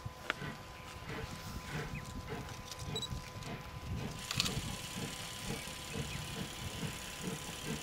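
Distant double-headed steam locomotives NM25 and W22 working a train, their exhaust beats a rhythmic low chuffing. A short electronic camera beep sounds about three seconds in.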